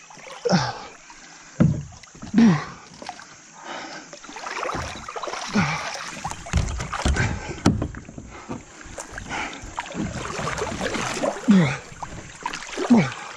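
Paddle strokes splashing and river water moving around a plastic sit-on-top kayak as it rides the current. Several short, loud sounds fall in pitch, near the start and twice near the end.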